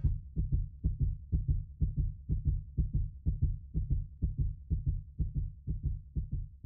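Recorded human heartbeat: low double thumps repeating steadily at about two beats a second.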